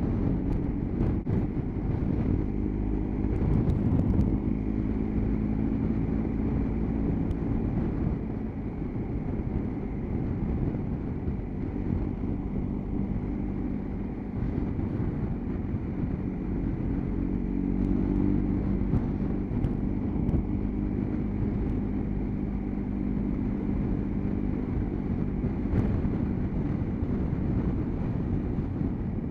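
Motorcycle engine running steadily in fourth gear at about 40 mph, with wind and road noise, heard from the rider's seat.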